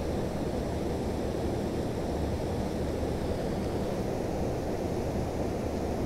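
Steady low rushing outdoor noise with no distinct events.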